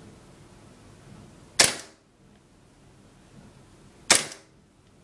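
KWA Glock 18C gas blowback airsoft pistol firing two single shots about two and a half seconds apart. Each is a sharp crack that dies away quickly, with a hard blowback of the slide.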